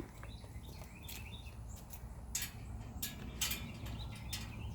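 Small birds chirping in short, scattered calls over a low steady rumble, with a few brief scuffs in the second half.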